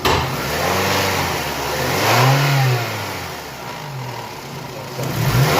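Toyota 2AZ-FE 2.4-litre four-cylinder engine being revved up and let back down twice, with a third rev starting near the end. It is noisy and vibrating, which the mechanic puts down to a faulty balance shaft unit.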